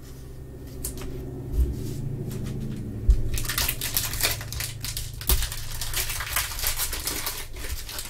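Plastic trading-card sleeve and a few dull knocks as a card is handled, then from about three seconds in a Panini Mosaic foil pack wrapper crinkling and crackling steadily in the hands.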